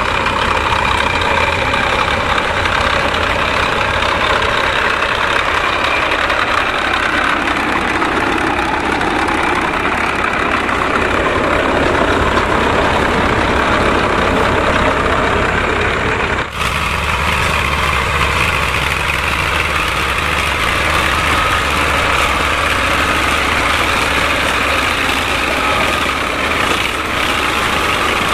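Massey Ferguson tractor's diesel engine running steadily. The sound changes abruptly about sixteen seconds in.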